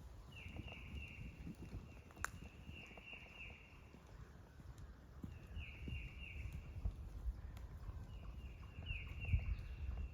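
A bird singing four phrases, each a quick run of four or five downward-slurred notes, repeated every few seconds. Footsteps on the trail thump underneath, with one sharp click about two seconds in.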